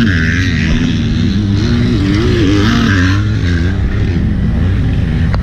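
Side-by-side utility vehicle's engine running as it pulls away and moves at low speed, heard from the passenger seat: a steady low rumble with the engine pitch repeatedly rising and falling.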